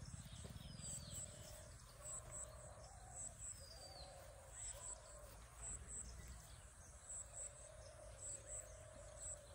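Quiet rural outdoor ambience of birds calling. A short high-pitched chirp repeats in pairs about once a second, with a few falling whistles and wavering lower calls. A low wind rumble runs underneath.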